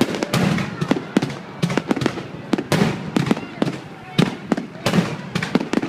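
Aerial fireworks exploding in a dense, irregular run of sharp bangs and crackles, several a second, with people's voices mixed in.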